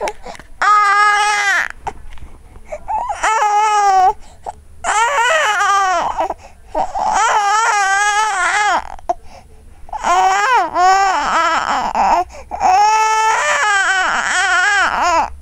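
Young baby crying in fussy wails: about six drawn-out cries of one to two seconds each, with the pitch bending up and down and short breaths between them.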